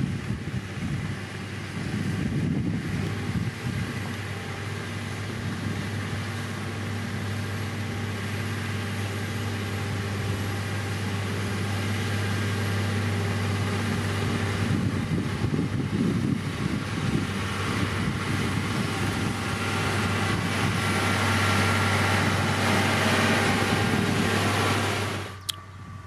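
Diesel engine of heavy road-construction machinery running steadily with a low hum, gradually getting louder. The sound drops abruptly with a click near the end.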